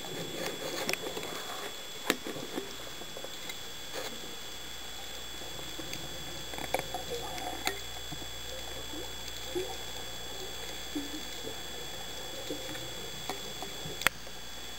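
Underwater ambience heard through a camera's waterproof housing: a steady hiss with a faint steady whine, scattered light crackling, and a few sharp clicks, the loudest one near the end.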